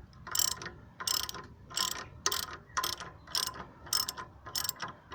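Socket ratchet wrench clicking in short, even strokes, about two a second, as the alternator's belt adjusting bolt is wound in to tighten the drive belt.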